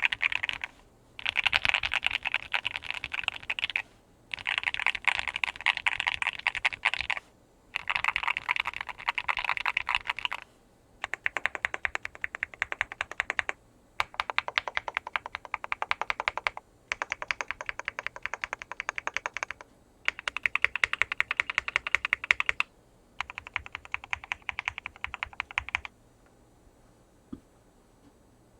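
Mechanical keyboard being typed on quickly in runs of two to three seconds, separated by short pauses. The keyboard is an OwLab Mr Suit with filmed, Krytox-lubed SP Star Meteor White switches, a POM plate, full stock foam and PBT Dolch keycaps, and its sound falls between thocky and clacky. The typing stops about 26 seconds in.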